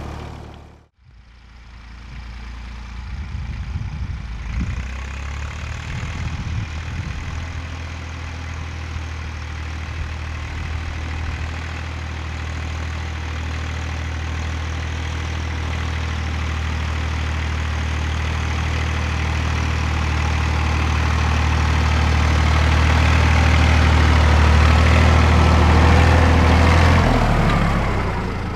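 Fordson Dexta tractor's three-cylinder engine running steadily while pulling a land roller, fading in after a short break near the start and growing steadily louder as the tractor approaches, then dropping off near the end as it passes close by.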